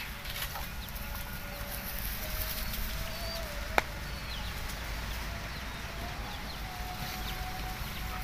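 Drawn-out animal calls held on one pitch, several in a row, with faint short high chirps over a steady low rumble; one sharp click a little before the middle.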